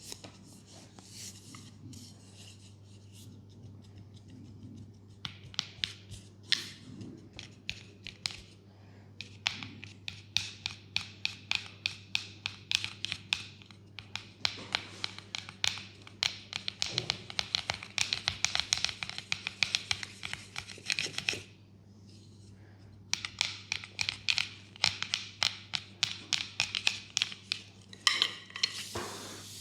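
Hands working on bare skin in a leg massage: quick, repeated tapping and rubbing strokes that make dense runs of crisp clicks, many a second, broken by a short pause about two-thirds of the way through.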